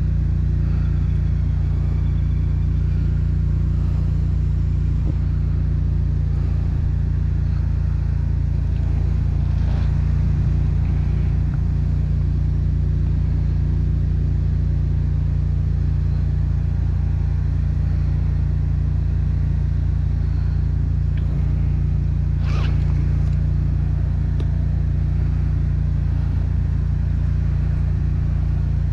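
Engine of a high-pressure drain jetter idling steadily, a loud, even low drone. A single brief click about three-quarters of the way through.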